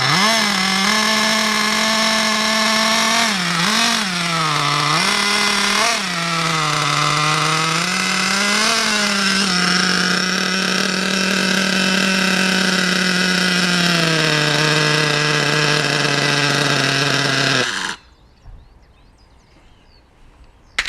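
Small two-stroke nitro glow-plug engine of an RC car running after a hard start, freshly cleaned and re-tuned. It is blipped up and down in pitch several times, then holds a steady high buzz, sags lower and cuts off abruptly near the end.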